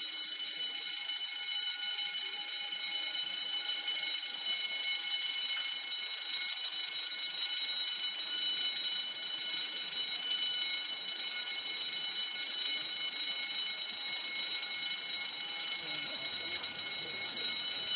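Building fire alarm sounding continuously, a steady high-pitched ringing with no breaks: the evacuation alarm set off by a smoke detector.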